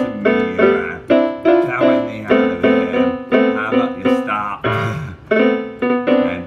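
Piano backing music: chords struck in a steady rhythm, about three a second, each fading quickly, with a short break about five seconds in.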